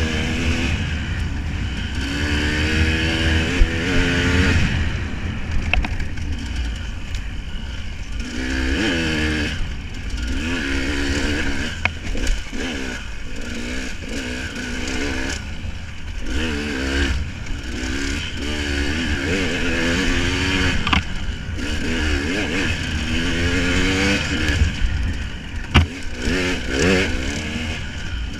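Motor vehicle engine revving up and down over and over, its pitch sweeping repeatedly, over a steady low rumble, with a few sharp clicks.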